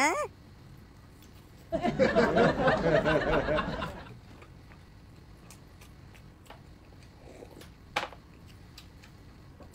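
A person laughing for about two seconds in wavering, pitched peals, opened by a short sliding vocal sound at the very start. A brief sharp sound comes near the end.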